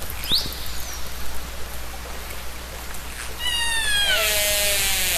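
Whale calls over a steady underwater hiss: a short rising squeal near the start, then a long downward-sliding call about three and a half seconds in that settles into a steady tone.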